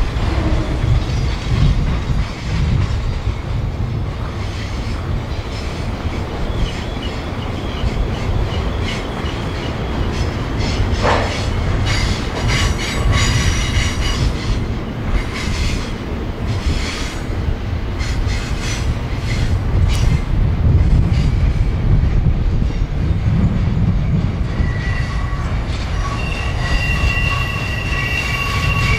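A freight train rolling past with a steady low rumble of engines and cars. A run of wheel clicks comes over the rails in the middle, and steady high-pitched wheel squeal rises near the end.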